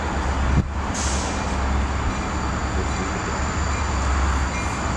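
Freight train tank cars rolling past: a steady rumble and clatter of steel wheels on rail, with a brief knock just over half a second in.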